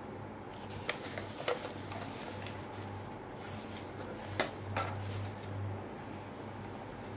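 Handling noise from a Canon Selphy CP1500 photo printer's plastic casing: a few sharp plastic clicks and taps as it is turned over in the hands and its front paper-tray cover is folded open, over a low steady hum.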